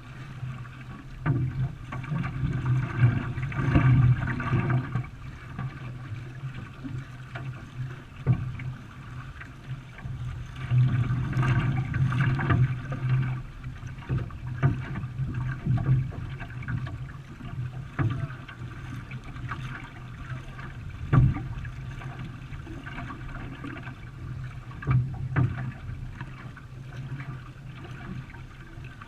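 A racing canoe being paddled: water splashing and rushing around the hull, swelling and easing irregularly, with a few sharp knocks.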